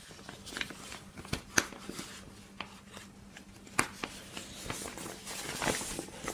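Handling noises from an inflatable camping mat: scattered sharp clicks of its plastic valve cap being worked and pressed into the valve, then the nylon fabric rustling as the mat is lifted near the end.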